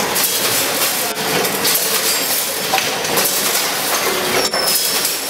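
Vertical packaging machine running: steady mechanical clatter with a few sharp clacks. A thin high whine comes in about four and a half seconds in.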